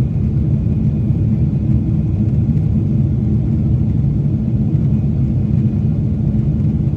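Steady low drone of a Boeing 747-8 passenger cabin in flight: the engines and the airflow over the fuselage, heard from inside the cabin.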